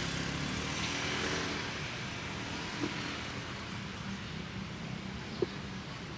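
A vehicle engine running with a steady low hum, with two short knocks, one about halfway through and one near the end.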